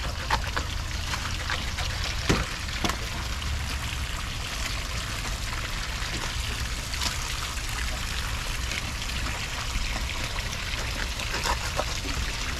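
Water pouring and trickling steadily over a low, steady rumble, with a few sharp knocks near the start and about two to three seconds in.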